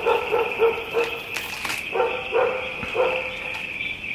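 A dog barking in quick runs, about three short barks a second, over a steady high-pitched drone.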